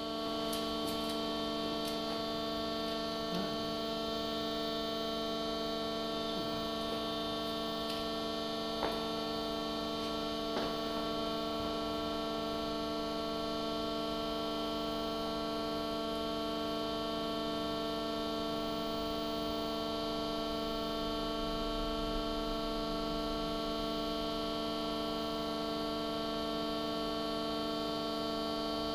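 Steady machine hum from a running robot manipulator rig, several steady tones sounding together, with a few faint clicks about 3, 9 and 11 seconds in.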